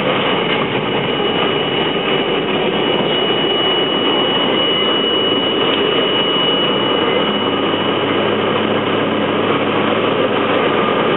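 R32 subway train running at speed through a tunnel: a steady, loud running noise with a thin, constant high whine over it.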